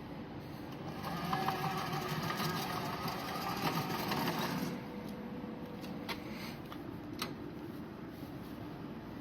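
Hybrid remote-control lawn mower's motor running with a steady whir, louder for a few seconds early on and then dropping back, with a few sharp clicks near the end.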